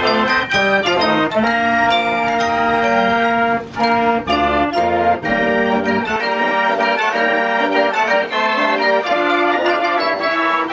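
Organ music: a quick melody of held notes over chords, with no speech.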